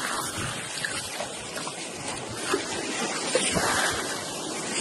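Surf washing and splashing around a sandbar shark in shallow water: a steady rushing noise with small knocks scattered through it.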